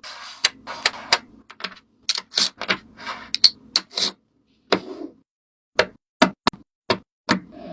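Irregular sharp clicks and taps mixed with short rustling sounds, as of hands handling small craft materials.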